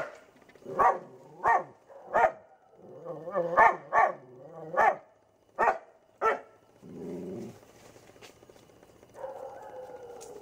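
A dog barking at a cobra hidden in a bush, about eight sharp barks over six seconds with growling between them, typical of a dog alarm-barking at a snake. The barking stops about six and a half seconds in, and two quieter, longer sounds follow.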